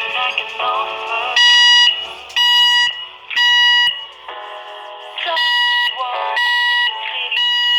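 Fire alarm sounding a high electronic beep in the temporal-three evacuation pattern: three half-second beeps about a second apart, a pause of about a second and a half, then three more. Lower tones that shift in pitch sound in the gaps between the beeps.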